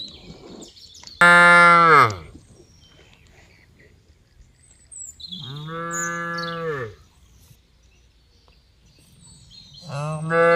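Cattle mooing: three calls a few seconds apart, each dropping in pitch as it ends. The first starts abruptly about a second in, and the third is still sounding at the end.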